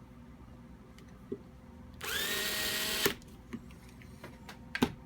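Electric drill driving a screw into the air-rifle shroud: its motor whine rises in pitch, holds for about a second and cuts off suddenly as the drill's automatic torque shut-off stops it. A few light clicks of handling come before and after.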